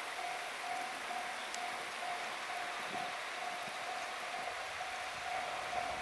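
Japanese level crossing warning bell ringing, a single-pitched electronic 'kan-kan' tone repeating about twice a second, signalling a train passing. It sounds over a steady hiss.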